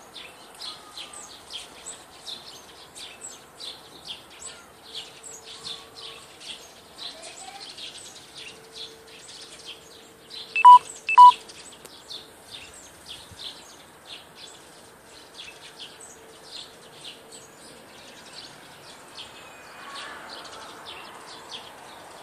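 Small birds chirping in quick, repeated high notes, about three a second, with two short, loud single-pitch beeps in quick succession about eleven seconds in.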